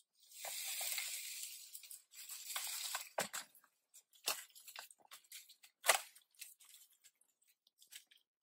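A dry wooden branch being wrenched and scraped, with two rough tearing stretches over the first three seconds, then a string of sharp cracks and snaps, the loudest about six seconds in.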